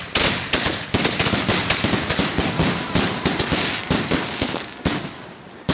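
Consumer fireworks going off in a rapid, dense run of sharp pops and crackles that thins out about five seconds in, with one more sharp pop at the end.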